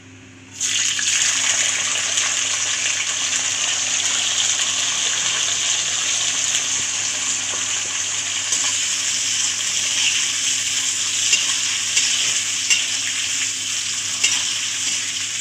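Chopped guar beans hitting hot oil in a steel kadhai: a steady sizzle that starts suddenly about half a second in, with a few light clinks of a metal ladle stirring them later on.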